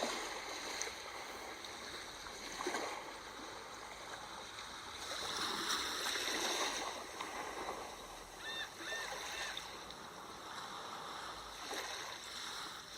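Sea waves washing in and out in surges, with a few short, high bird calls about two-thirds of the way through.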